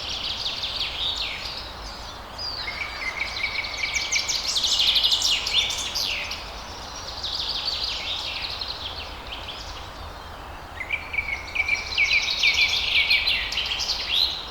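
Several forest birds singing and chirping together over a steady background hiss, with a long held trilling note coming in twice, around three seconds in and again near the end.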